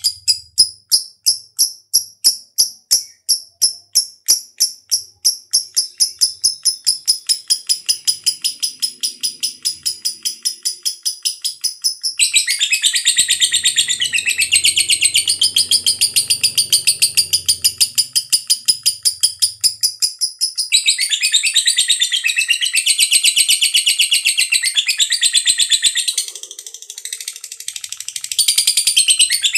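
Lovebird giving its long 'ngekek' song: a rapid, high-pitched chattering trill of repeated notes. It starts as separate pulses, turns into a dense unbroken chatter about twelve seconds in, breaks off briefly, and resumes with a quieter patch near the end.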